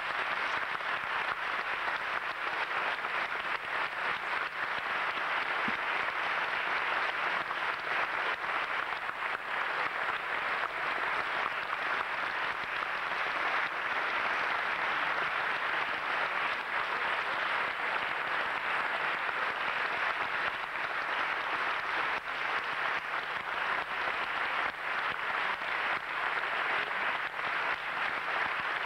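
Large concert audience applauding steadily: dense, even clapping with no music or voices standing out.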